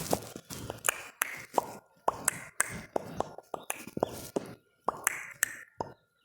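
An irregular run of short pops and clicks, about three a second, with a brief pause a little before the end.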